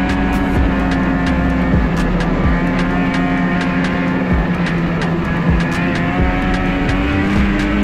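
Ski-Doo Renegade 600 EFI two-stroke snowmobile engine running at a steady cruise, heard from the rider's seat, with rushing wind and many short sharp clicks over it.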